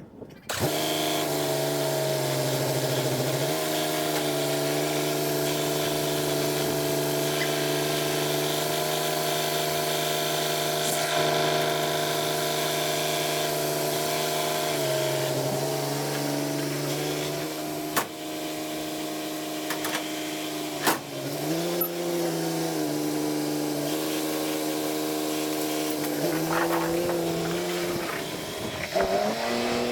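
Farm machinery engine running steadily, starting suddenly and shifting its pitch up and down a few times as the engine speed changes.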